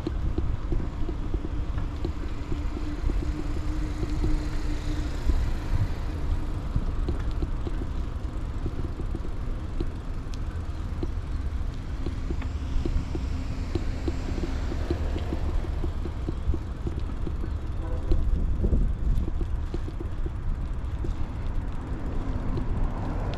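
Riding noise from a bicycle: a steady low rumble of wind on the microphone and road noise, with small rattles and clicks, and a faint steady hum in the first few seconds and again midway.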